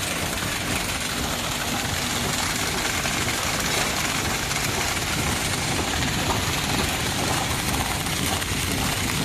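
Servo-driven popcorn bag packing machine running at speed: a steady, even mechanical noise.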